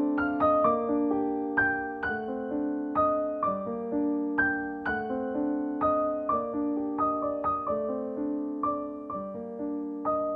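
Background piano music, a gentle melody of notes struck one after another, each ringing and fading.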